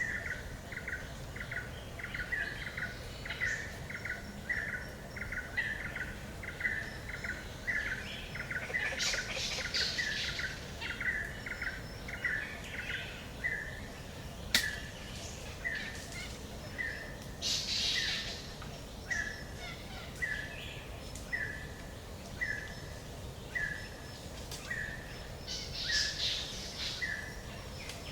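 Forest ambience of birds calling: one short chirping note repeats steadily about twice a second, slowing a little in the second half, while louder bursts of bird chirps come about every eight seconds. A single sharp click sounds about halfway through.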